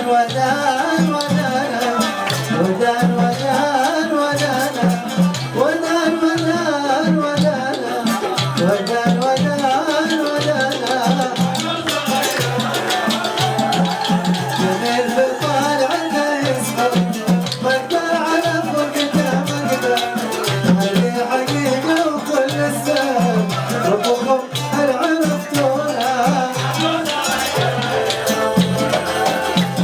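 Arabic band music at a steady, loud level, with a regular drum beat, shaker-like hand percussion and a winding melody line over it.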